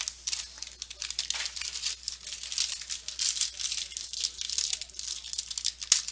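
Packaging wrap on a sealed box of trading cards being torn open and crinkled by hand, a continuous irregular rustling and tearing.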